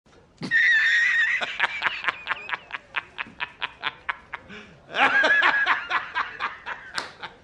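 A man laughing in a rapid staccato "ha-ha-ha", about five short bursts a second, opening with a high drawn-out squeal. The laugh swells again near the end: the film-clip editor's laugh used as a meme.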